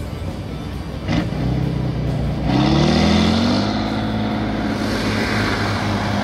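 Diesel engine of an off-road competition truck revving up under heavy load as the truck pulls out of a dip and climbs a steep hill. The pitch rises and the sound is loudest a little before halfway, then it settles into a steady hard pull. A short hiss comes about a second in.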